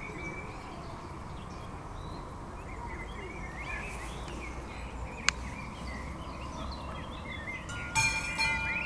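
Small birds chirping over a steady outdoor background, with a single sharp click about five seconds in. Near the end, the AŽD 71 level-crossing signal's warning bell starts ringing in repeated strokes as the crossing activates for an approaching train.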